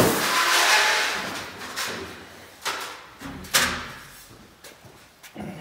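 Loose car parts being handled: a knock, then a second or so of rustling and scraping, then a few separate knocks as parts are moved and set down, the sharpest about halfway through.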